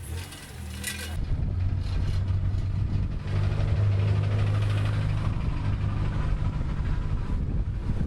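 Car engine running, heard from inside the car as a steady low hum that comes in about a second in and grows louder from about three seconds in.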